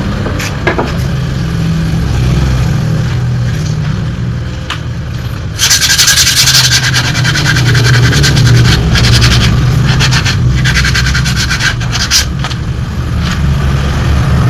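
Rapid scraping and rubbing that turns loud about six seconds in and stops and restarts several times, over a steady low hum.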